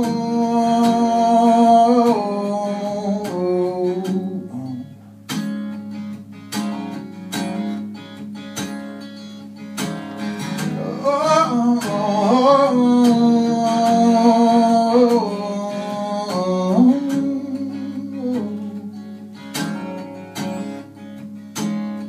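Live acoustic band: acoustic guitars strumming under a male voice singing long held notes that stop about two seconds in. The guitars carry on alone, and the voice returns about eleven seconds in with sliding notes before dropping out again around seventeen seconds.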